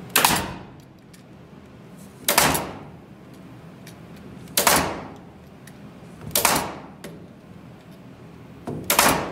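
Senco JoistPro 150XP pneumatic metal-connector nailer firing five times, roughly two seconds apart, driving inch-and-a-half nails through an H3 hurricane tie into timber. Each shot is a sharp bang that dies away within about half a second.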